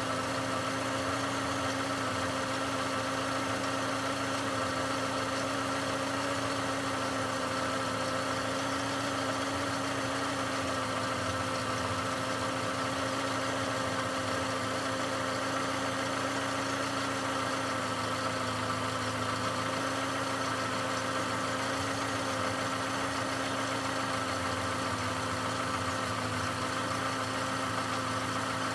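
Volkswagen Golf 5 Plus's 1.6-litre BSE four-cylinder petrol engine idling steadily, an engine with a knock.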